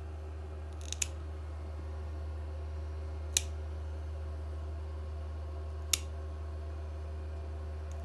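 Nail clippers snipping a cat's claws: single sharp clicks a couple of seconds apart, over a low steady hum.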